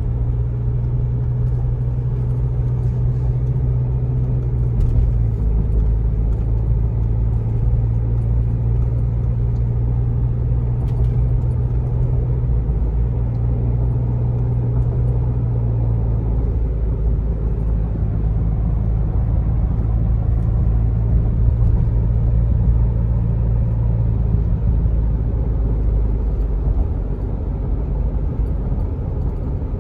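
Isuzu MU-X SUV's engine and road rumble while driving: a steady low hum that shifts pitch several times as the revs change.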